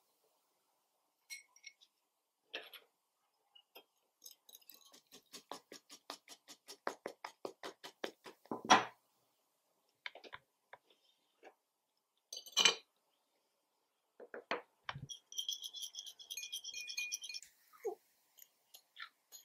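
Kitchen utensils clinking against glass and ceramic bowls during mixing: a run of quick clinks that builds to a loud knock about nine seconds in, a few more sharp knocks, then a wire whisk rattling and ringing against a ceramic bowl as eggs are beaten, near the end.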